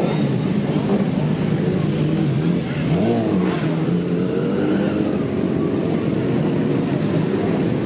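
Several motorcycle engines, from sport bikes and street bikes, running as a procession of motorcycles rides past close by. About three seconds in, one engine revs up and back down.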